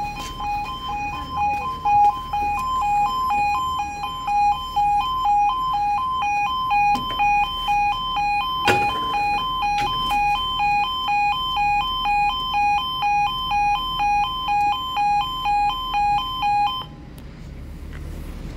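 Railway level crossing audible warning: a loud two-tone electronic alarm alternating steadily between two pitches while the barriers lower, warning that a train is approaching. There is a single knock about halfway through, and the alarm cuts off suddenly near the end.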